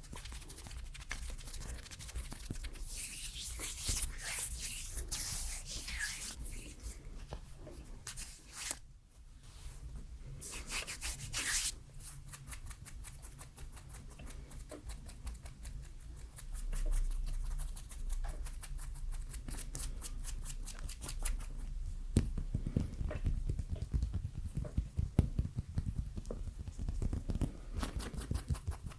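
Close-miked ASMR hand sounds: skin rubbing and fingers fluttering right at the microphone, a dense run of fine crackles with some brief hissy swells.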